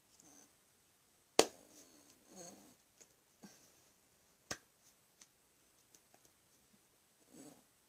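Sharp clicks and slaps of a signer's hands striking each other and her fingers snapping as she signs. The loudest comes about one and a half seconds in, another strong one about four and a half seconds in, and a few lighter ones fall between. Soft mouth and breath sounds come between the clicks.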